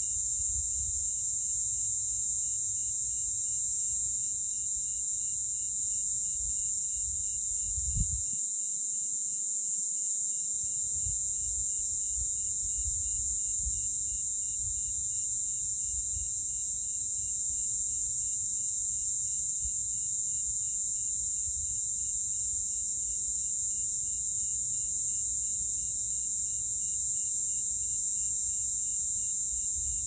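Cicadas singing in a steady, unbroken high-pitched chorus. A low rumble runs beneath it, with a soft thump about eight seconds in, after which the rumble drops away for a couple of seconds.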